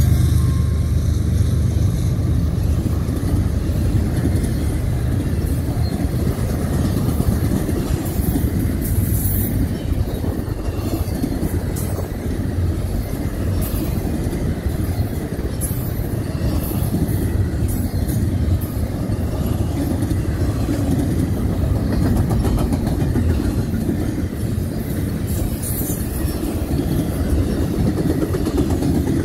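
Double-stack intermodal well cars of a freight train rolling past close by: a steady rumble of steel wheels on the rails with a light clatter and occasional sharp ticks.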